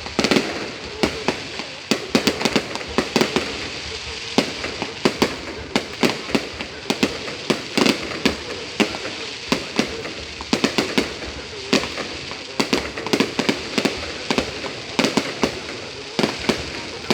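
Aerial fireworks display: a dense, continuous run of sharp bangs and crackling reports, several a second, from shells bursting overhead.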